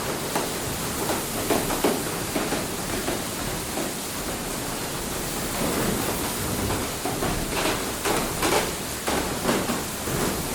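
Water rushing and splashing at a water mill: a steady wash of water with irregular louder splashes.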